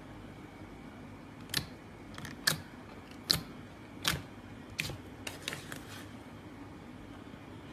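Slime being squeezed and poked, making a series of sharp pops roughly one a second, with a few smaller ones after the first five.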